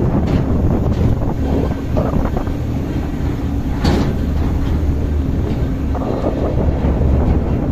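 Vehicle driving over a rough, stony mountain road: a steady low engine-and-road rumble with scattered knocks and rattles, and one sharper knock about four seconds in.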